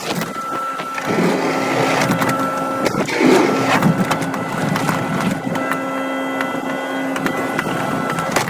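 Excavator running with a steady mechanical whine from its engine and hydraulics, over scraping and scattered knocks of debris being moved.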